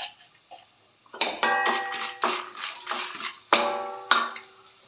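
A utensil knocking and scraping against a stainless steel kadai while a tempering is stirred. Twice the pan rings for most of a second after a knock, about a second and a half in and again at three and a half seconds.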